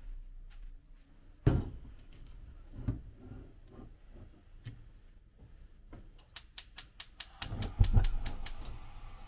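A large aluminium pot is set down on a gas hob's grate with a loud knock, followed by a lighter knock. Near the end the hob's spark igniter clicks rapidly, about seven clicks a second for two seconds, and the burner catches with a low thump, leaving a faint steady flame hiss.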